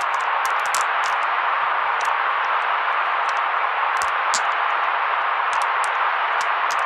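Steady electronic noise hiss, strongest in the middle range, with short high crackles scattered irregularly over it.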